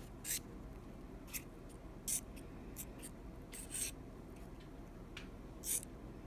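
Palette knife spreading and scraping thick wet paint across a palette: about six short, soft scrapes, spaced irregularly.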